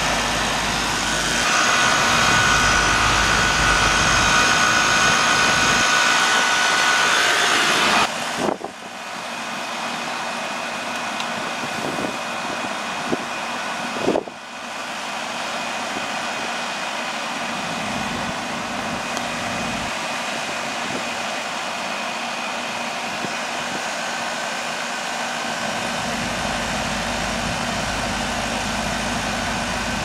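Goodman air-conditioning condenser running steadily, its compressor and condenser fan under way while R-22 refrigerant is charged into the system as vapor. A couple of short knocks from handling the hoses and gauges come about eight and fourteen seconds in.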